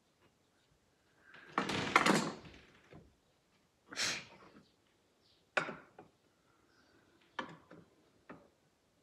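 Aluminium jig rails and parts being slid and set down on a workbench. A scraping clatter comes in the first few seconds, then several short knocks and taps as pieces are shifted into place.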